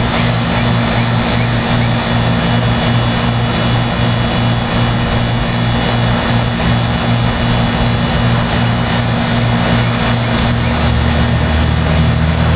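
A rooftop packaged air conditioning unit running in cooling mode: the condenser fan blows air over a steady, slightly pulsing motor and compressor hum. A deeper hum joins about ten seconds in.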